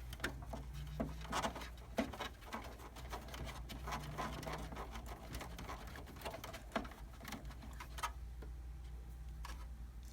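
A short Phillips screwdriver driving screws back into a laser printer's frame by hand: a dense run of small, irregular clicks and taps of metal on plastic and metal.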